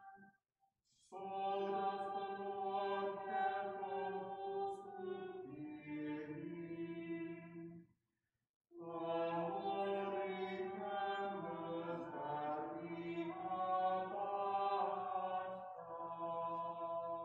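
Choir chanting in harmony: held chords that move in steps, sung in two long phrases with a short silent break about eight seconds in.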